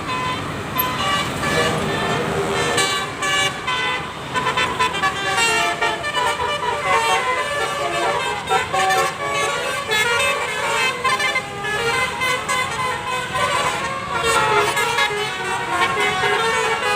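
Basuri 'telolet' bus horn playing a tune of short notes that change pitch rapidly, one after another, over the noise of road traffic.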